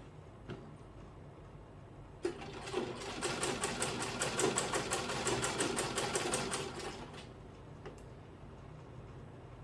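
Sewing machine stitching a zip seam: a run of rapid, even stitches starts about two seconds in, lasts about five seconds and stops. A faint click comes before and after.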